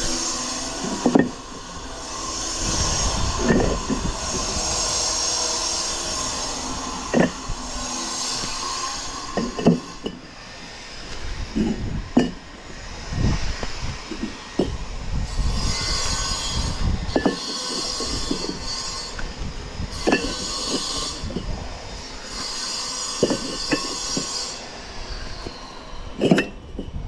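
Clay bricks being lifted off a stack and set down on a scaffold platform: sharp clacks of brick on brick every one to three seconds. Between them come stretches of a high, grating squeal.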